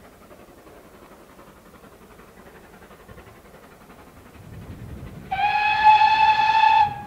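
Steam locomotive GWR 2-8-0T No. 5239 sounds its whistle once, a single steady blast of about a second and a half coming about five seconds in. Before it, the approaching engine makes only a faint low rumble.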